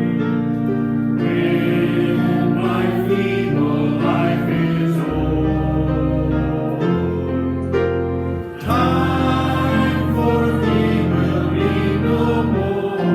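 Voices singing a gospel hymn together over instrumental accompaniment with a steady bass line, briefly dipping about two-thirds of the way through.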